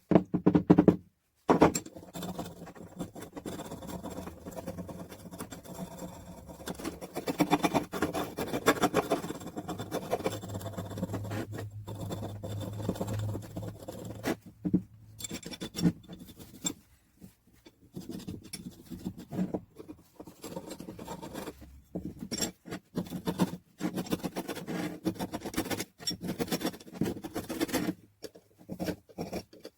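Rapid, irregular hand scraping and rubbing strokes on parts of an old hand drill being cleaned up for restoration, with a few louder knocks at the very start.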